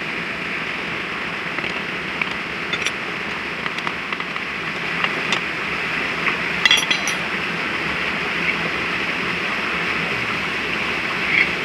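Light metallic clicks and clinks of bearings and small parts being handled during a bearing change, a few close together about six and a half seconds in. Under them runs a steady outdoor hiss with a constant high-pitched drone.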